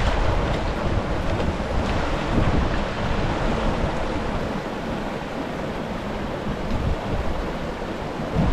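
Loud, steady rushing noise with uneven low rumbling buffets from wind blowing across the microphone.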